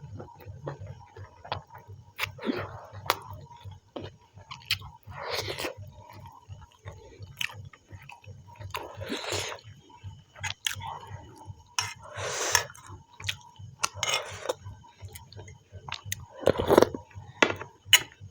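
Close-up chewing and mouth sounds of a person eating rice and chicken, in irregular bursts every second or two, with sharp little clicks between them.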